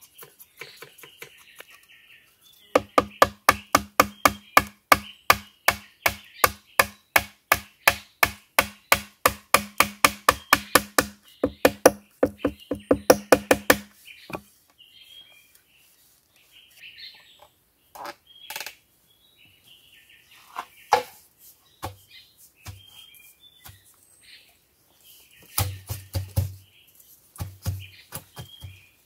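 A wooden mallet hammering a chisel into a thick green bamboo pole, about three blows a second for some eleven seconds, each knock with a hollow ring from the bamboo. Then a few scattered knocks, with birds chirping.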